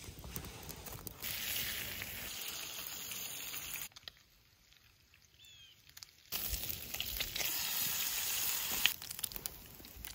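Bacon sizzling in a frying pan on campfire coals: a steady hiss with sharp crackles, which starts about a second in. The hiss drops away for a couple of seconds in the middle, leaving a quiet stretch with a few faint chirps, then comes back. It thins to scattered crackles near the end.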